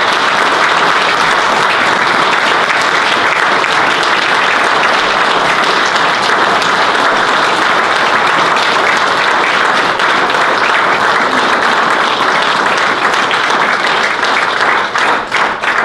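An audience applauding: a long, steady round of applause that thins to scattered separate claps near the end.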